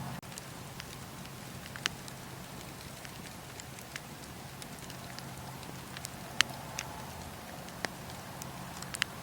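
Wood fire crackling in a fireplace: a steady hiss and low rumble with scattered sharp pops, the loudest about six seconds in and a quick double pop near the end.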